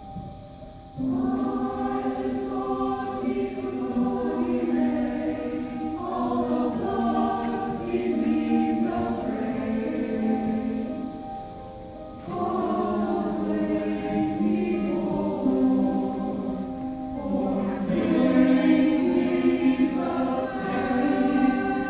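Church choir singing a cantata. The voices come in about a second in, pause briefly past the middle, then resume.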